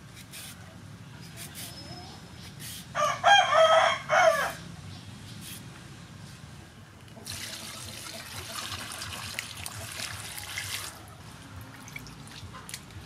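A rooster crows once, loud, about three seconds in. Around it come faint scraping clicks from a serrated vegetable peeler on a cucumber, and later a few seconds of rushing noise.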